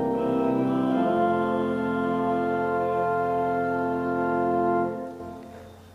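Church organ playing sustained chords, moving to a final long held chord that is released about five seconds in, after which the sound fades away in the church's echo.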